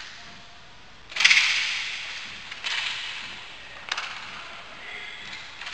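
Roller hockey stick and puck impacts: three sharp cracks, the loudest about a second in, each trailing off in echo.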